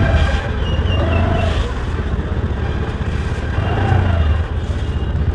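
Motor scooter running at riding speed: a steady low engine rumble throughout.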